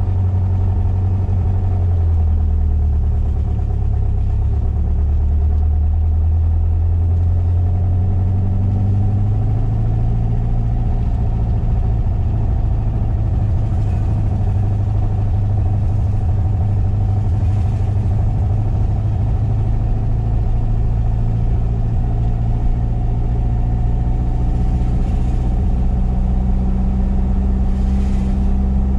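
1973 VW SP2's air-cooled flat-four with dual 40 carburettors and stainless exhaust, heard from inside the cabin while driving, running steadily under light throttle with small rises and falls in pitch.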